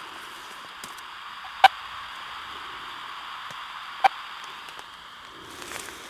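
Radio-telemetry receiver hissing with static, with two short beeps about two and a half seconds apart: the regular pulses from the radio transmitter on a timber rattlesnake being tracked.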